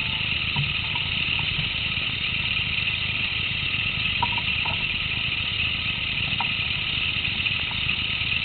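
Motorcycle engine idling, a steady low rumble under a constant high hiss, with a few faint short ticks.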